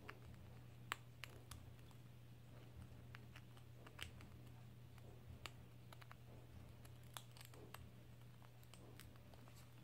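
Gray squirrel gnawing on a thin wooden stick: faint, irregular sharp clicks and scratches from its teeth, over a low steady hum.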